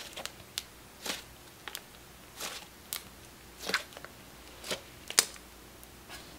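Clay slime mixed with cloud cream being squeezed and stretched by hand, giving off about ten short, irregular pops and clicks from the air bubbles in it.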